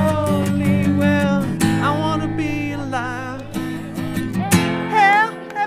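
Background music: strummed acoustic guitar with a wavering melody line over it.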